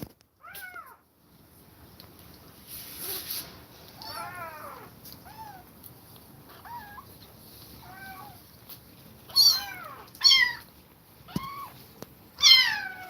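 Kittens meowing: about ten short, high, separate cries, the loudest three near the end.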